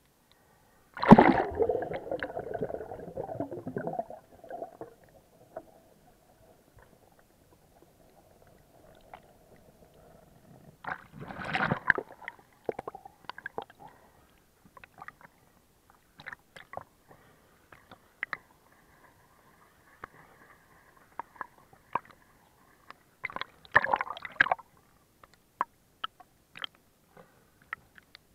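Water sloshing and bubbling around a submerged camera during snorkeling, with scattered small clicks and knocks. It is muffled, and comes in three louder bursts: about a second in, midway, and near the end.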